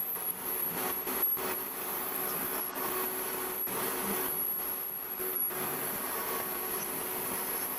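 SOROTEC Basic Line 1005 CNC router milling a wooden inlay plug: a steady high spindle whine over the noisy hiss of the bit cutting wood. The cutting noise briefly drops out a few times.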